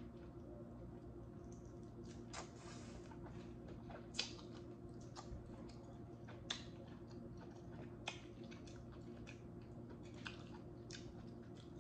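Close-miked mouth sounds of chewing sauce-covered lobster tail meat: wet squishing and smacking with scattered sharp clicks, a few louder ones about four, six and a half and eight seconds in, over a low steady hum.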